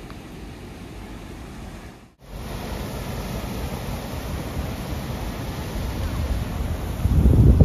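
Steady rush of a waterfall with wind buffeting the microphone. The sound breaks off briefly about two seconds in and comes back louder, and a heavy gust of wind rumble swells near the end.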